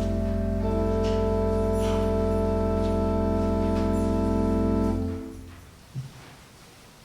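Church organ holding a sustained chord that shifts slightly just under a second in, then is released about five seconds in and fades away in the room's echo; a single soft knock follows.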